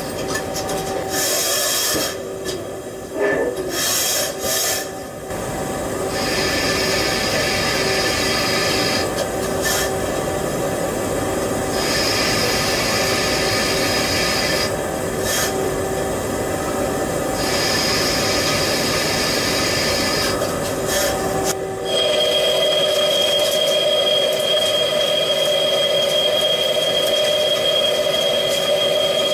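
Megaturn Smart 600M vertical turning centre cutting steel: a steady rubbing, scraping cutting noise with held whining tones. The whines switch abruptly every few seconds, and a strong high whine takes over for the last several seconds.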